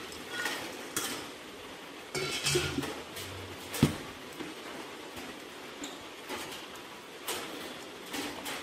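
Peanuts poured from a stainless steel colander into a blender jar, with scattered clinks and rattles of nuts and metal against the jar. Light knocks follow as the lid is handled, the loudest a single sharp knock about four seconds in.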